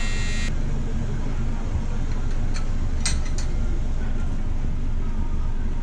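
A welding arc buzzing on a metal intercooler pipe, cutting off about half a second in. A steady low rumble follows, with a few light clicks around the middle.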